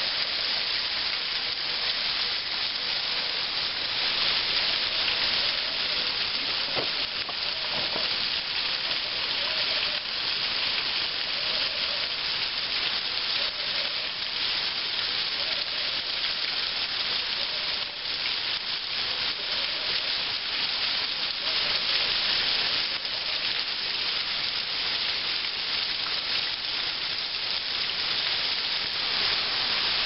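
Waterfall pouring over a basalt cliff and splashing onto rocks and into a pool: a steady rushing hiss of water that swells a little now and then.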